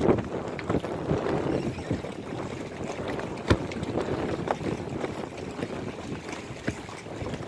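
Wind on the microphone over sea water, with scattered knocks from a floating walkway of linked plastic float modules rocking on the waves and underfoot; the sharpest knock comes about three and a half seconds in.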